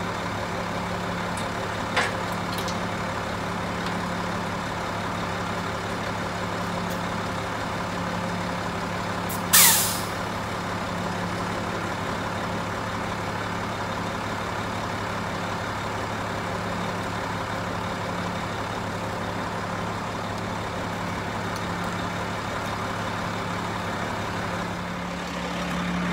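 Semi truck's diesel engine idling steadily, with a short, loud hiss of compressed air released from the rig's air system about ten seconds in.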